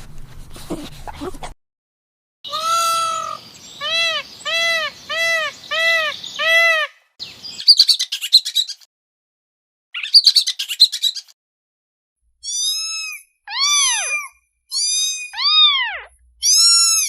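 Bird calls: a run of five or six short, evenly spaced arched notes, then two harsher rasping calls, then more arched calls, several sliding down in pitch.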